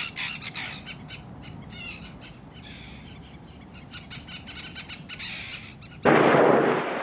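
Birds calling, many short high chirping calls overlapping one another. About six seconds in, a loud rushing noise cuts in abruptly.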